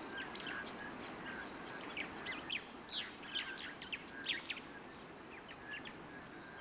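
Red-legged partridge chicks peeping: quiet, short, high chirps, scattered and coming several a second in the middle stretch, over a faint steady background hiss.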